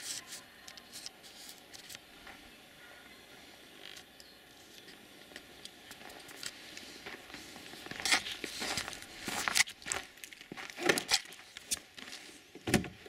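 Footsteps crunching in fresh snow, irregular and getting louder over the second half, then a sharp clack near the end as the car's door is opened.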